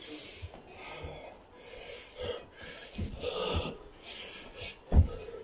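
A man breathing hard and gasping from exertion while doing burpees, with dull thuds as he drops to and jumps off the carpeted floor; the loudest thud comes about five seconds in.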